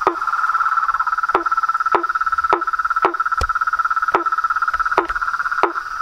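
Frogs calling at night: a steady, fast pulsing trill runs under repeated short calls, one every half second or so, each dropping steeply in pitch.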